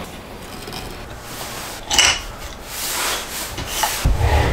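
Tools and a wooden jig being handled: a sharp knock about two seconds in, then rubbing and scraping, and a low thump near the end as the multi-tool on the sliding jig is set down.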